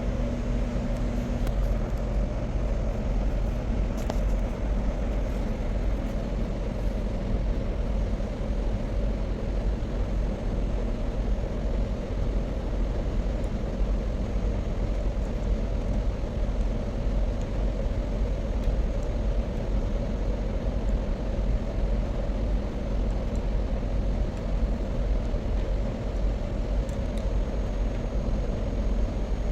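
Steady low rumble and hum of running machinery, unchanging throughout, with a few faint clicks.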